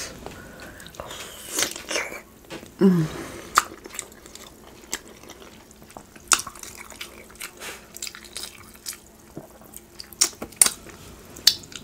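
Close-miked eating: a person chewing saucy rotisserie chicken and corn, with many sharp, wet mouth clicks and smacks. A short falling hum comes about three seconds in.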